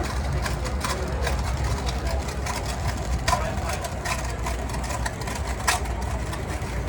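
Heavy construction 3D printer machinery running with a steady low rumble, with a sharp click or knock every second or two.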